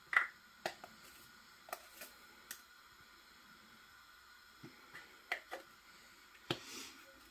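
Light, scattered clicks and taps from a plastic garlic-granules tub and a metal teaspoon being handled while the granules are spooned out. There is a brief soft hiss near the end.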